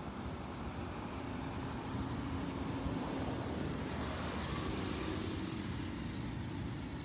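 A car going by on the street: a steady rush of engine and tyre noise that swells a couple of seconds in and eases off near the end.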